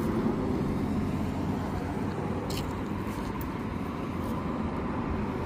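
Steady rumble of road traffic, with a couple of faint clicks about halfway through.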